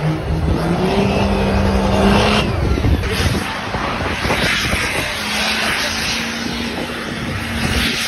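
Pickup truck burnouts: an engine held at high revs while the tyres spin in place on pavement. About two and a half seconds in, a second truck's burnout takes over.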